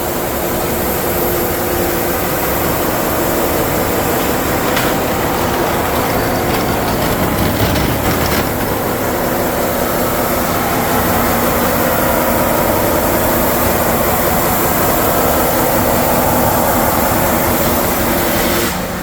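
Loud, steady running of a large shop surfacing machine as the cast epoxy top feeds through it, grinding its face flat.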